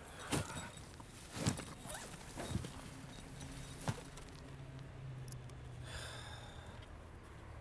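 Footsteps on grass, then the rustle and a few sharp knocks of gear being handled as a backpack is set down, with a faint steady low hum through the middle.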